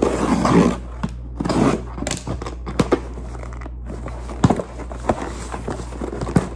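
Cardboard shipping box being pulled and torn open by hand: irregular rustling and tearing of cardboard flaps with scattered sharp crackles, the biggest rustles right at the start and about a second and a half in.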